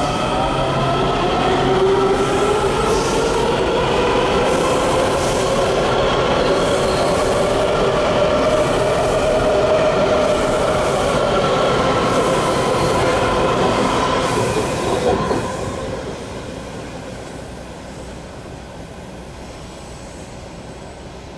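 Washington Metro 7000-series train pulling out of a station: its propulsion whine rises in pitch as it accelerates, over wheel-on-rail noise with regular clicks of the wheels over rail joints. After about fifteen seconds the sound falls away to a quieter, more distant rumble.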